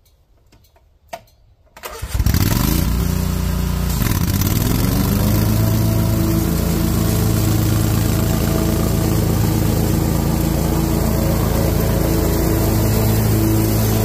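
A click, then about two seconds in a small engine on the lawn mower rig cranks and catches, its pitch climbing for a couple of seconds before it settles into a steady, loud run.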